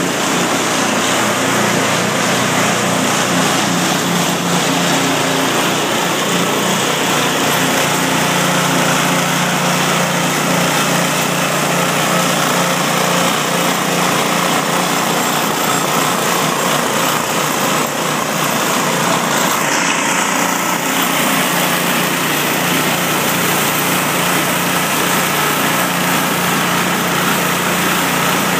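Small gasoline engine powering a motorized grape press, running steadily at an even speed with a lawn-mower-like drone.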